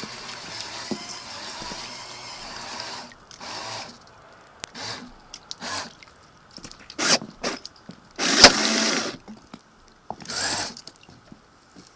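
A small electric motor whirring steadily for about three seconds, then running in short bursts as it is switched on and off; the longest and loudest burst comes about eight seconds in and lasts about a second.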